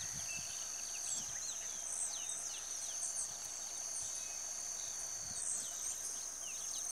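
A steady high-pitched insect trill, with a second, lower trill that stops about five seconds in, and many short falling bird chirps scattered over it.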